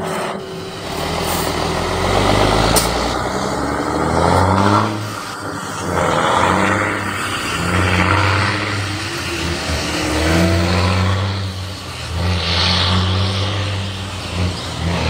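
Heavy diesel truck engine running loud in repeated surges, swelling and easing off every two to three seconds.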